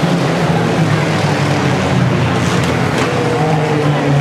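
Several sport compact race cars' four-cylinder engines running on a dirt oval at once, their engine notes rising and falling as they lap.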